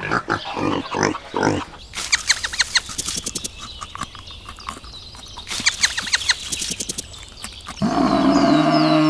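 Pigs grunting in quick repeated pulses, then a few seconds of rapid clicking and squeaky sounds. About eight seconds in, a long, loud animal call with a steady pitch starts.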